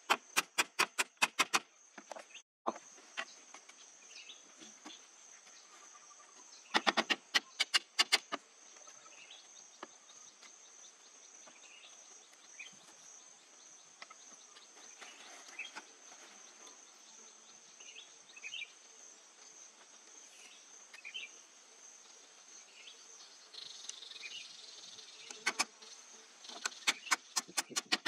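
A hatchet knocking on a bamboo-and-pole boat frame in quick runs of sharp strikes, about four a second: a run near the start, another a third of the way in, and more near the end. Between the runs, insects keep up a steady high drone.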